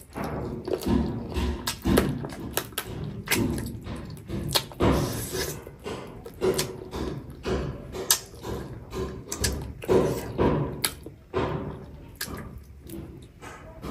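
Close-miked eating sounds of a person chewing rice and chicken eaten by hand: irregular wet lip smacks and mouth clicks over soft chewing thumps, several a second.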